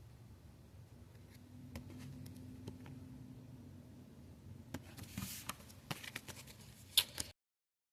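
Trading cards being handled: faint scattered clicks and light paper rustling, busier about five seconds in, with a sharp click near the end before the sound cuts off abruptly.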